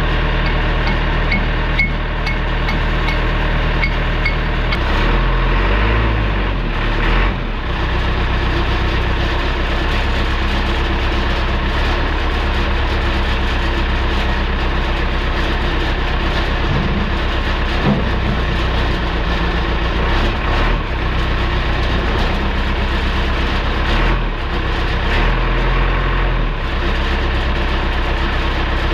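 JCB backhoe loader's diesel engine running steadily, its low note shifting briefly about six seconds in and again near the end.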